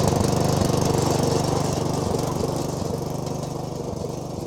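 Small lawn mower engine running steadily just after starting, its level slowly easing down.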